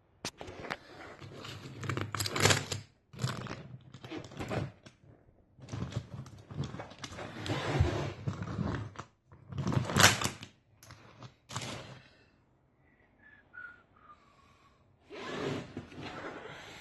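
Assembled metal conveyor chain with its scraper wipers, handled and moved, giving irregular bursts of rattling and sliding clatter, with a lull near the end before a last burst.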